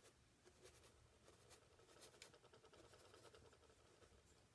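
Faint scratching of a flat bristle brush stroking and scrubbing oil paint onto a painting panel, in short uneven strokes.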